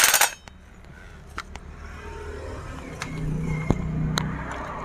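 Work on a chainsaw cylinder while the decompression valve is being tightened: a short loud rush of noise at the start, then several sharp metal clicks, with a steady low hum coming in about three seconds in.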